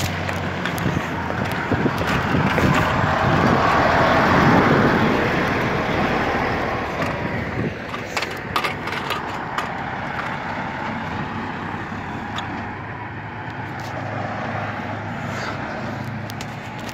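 Road traffic passing close by: a car and a dump truck drive past, loudest about four to five seconds in, then the truck's engine hums steadily as it moves off up the street.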